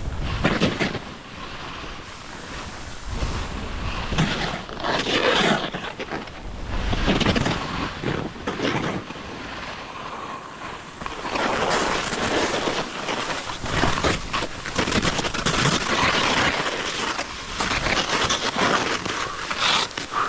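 Skis hissing and scraping down a steep snow face of fresh powder over hard ice, growing louder and fading in surges with each turn, with wind buffeting the helmet microphone.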